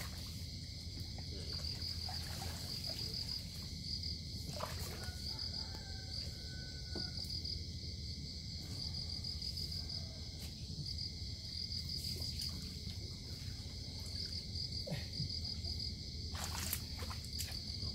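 Crickets chirping in a steady, high, pulsing trill over a low steady rumble, with a few faint knocks now and then.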